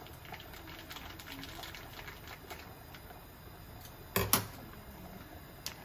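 Kitchen scissors snipping open a small plastic pouch, with light clicks and crinkling, then one short, loud clatter a little over four seconds in.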